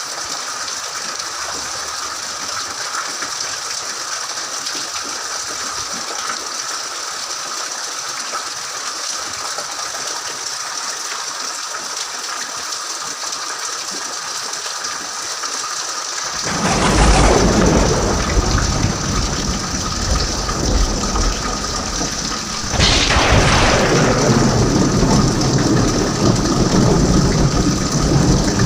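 Steady rain falling, then two thunderclaps: one just past halfway and another about six seconds later, each breaking suddenly into a long low rumble that slowly fades under the rain.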